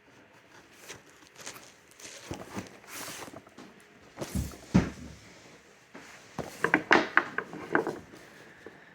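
Cardboard shipping box being worked open by hand: scraping and rustling, a couple of heavy knocks about halfway through, then a quick run of sharp clicks and crackles.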